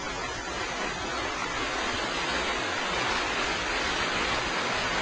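Steady hiss of a TIG welding arc burning on steel.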